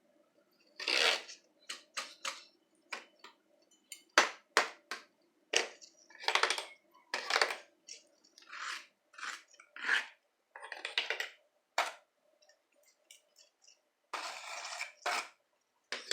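A homemade striker hitting and scraping the recycled materials of a sound board (plastic cups and bottles, corrugated cardboard, sandpaper, small cardboard boxes): an irregular run of separate sharp taps and knocks, broken by several raspy scrapes of about half a second each. The sound changes from stroke to stroke with the material struck and the end of the striker used.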